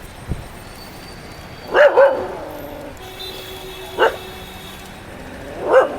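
A dog barking: a quick double bark about two seconds in, then single barks at about four seconds and near the end.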